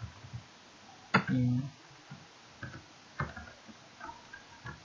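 Computer keyboard keys clicking in scattered strokes as a line of text is typed. About a second in there is one louder knock, followed by a brief low hum.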